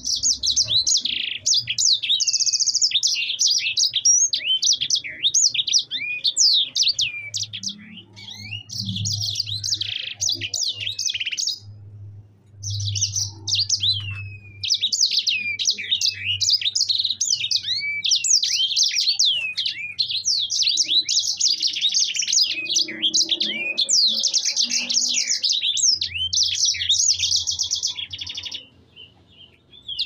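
A caged sanger finch singing a long, fast, nearly unbroken song of high twittering notes, quick down-sweeping chips and buzzy trills. It pauses briefly about twelve seconds in and again near the end.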